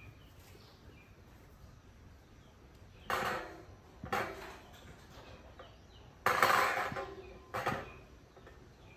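Four clattering knocks of hard objects being handled, about a second apart at first; the third is the loudest and longest.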